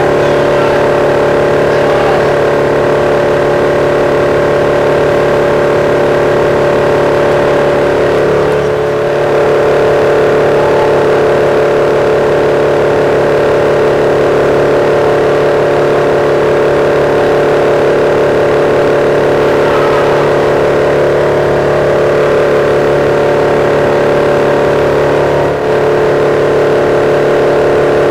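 A large shredding machine running steadily: a constant engine drone with its toothed cutting drum turning, shifting slightly in pitch about nine seconds in.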